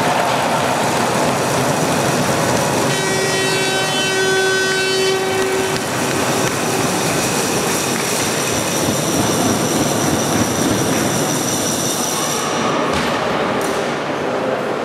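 A horn blares for about three seconds, starting about three seconds in, over a loud, steady din of rink crowd noise.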